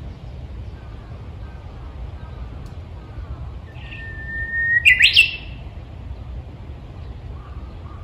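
Japanese bush warbler singing its song once, about halfway through: a long held whistle that breaks into a quick rising, warbled flourish.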